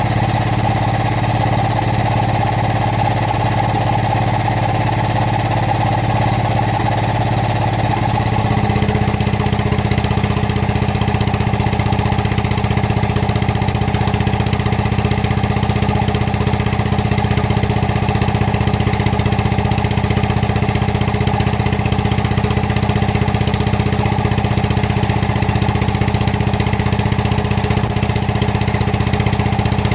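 Excavator diesel engine running steadily. About eight seconds in, its note steps up slightly and it gets a little louder, then holds there.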